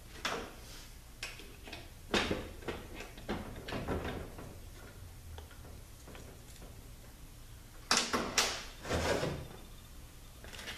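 Metal transmission parts clunking and scraping as they are handled during a ZF 8HP70 teardown. A scatter of sharp knocks comes in the first few seconds, then a louder cluster of clunks and a short scrape about eight seconds in.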